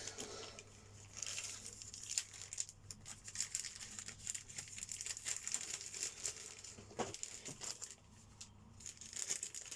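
Plastic bag crinkling and rustling as model-kit parts are handled and slid back into it, with irregular rustles and small clicks.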